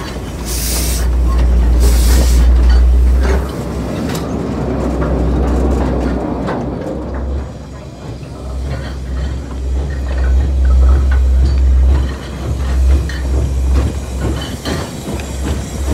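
Narrow-gauge Porter steam locomotive passing close by: two bursts of steam hiss in the first two seconds and a running rumble, then train wheels clicking and squeaking over the rails as the cars roll past. A strong low rumble comes and goes throughout.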